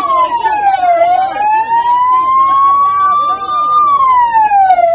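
Wailing siren of a motorcade escort vehicle. Its pitch drops quickly about a second in, climbs slowly for about three seconds, and drops again near the end.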